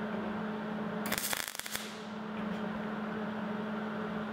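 MIG welding arc crackling and spitting against a steel drum in a short run of about a second, shortly after the start, over a steady low electrical hum.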